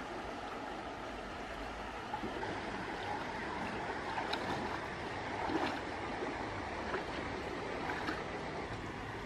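Steady rushing of running water, with a few small clicks scattered through it.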